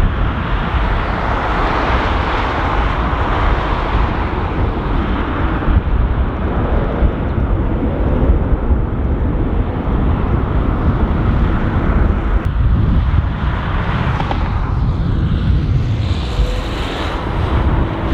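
Jet airliner engines running, a continuous rumble mixed with heavy wind buffeting on the microphone; the sound shifts about three-quarters of the way through.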